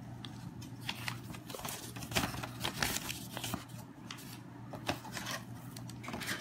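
Irregular small clicks and light rustling from a plastic action figure and its parts being handled and fitted.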